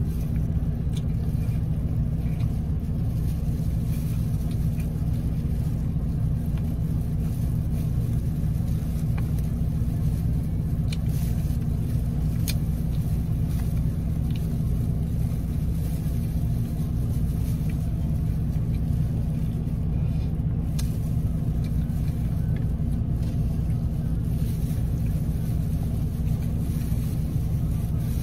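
Steady low hum of a car's engine idling, heard from inside the cabin. A few faint crackles come from gloved hands tearing crispy fried chicken.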